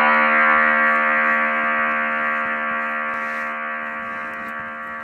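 Background music: one long, buzzy synthesizer note held and slowly fading, with a few faint ticks over it.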